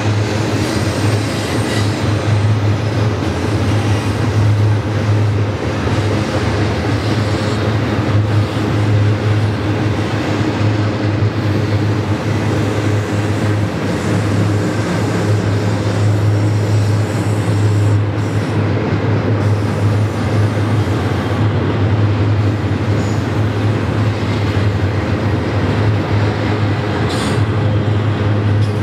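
Double-stack intermodal freight train's container well cars rolling past: a steady rumble of steel wheels on the rails with a constant low hum underneath.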